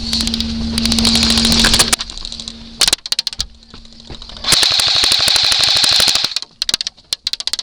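Airsoft guns firing on full auto: a long rapid burst for about two seconds, scattered shots, a second long burst from about four and a half seconds in, then a few single shots near the end.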